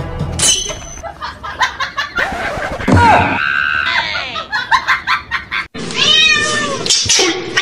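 A white kitten meowing: a few short rising-and-falling cries about six seconds in. Before that comes a jumble of knocks and squeaky sliding pitches.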